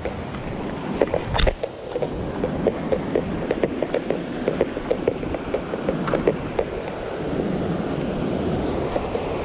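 Surf washing over a sandstone rock shelf, with wind buffeting the microphone and footsteps on rock as short irregular ticks. A sharp knock sounds about a second and a half in.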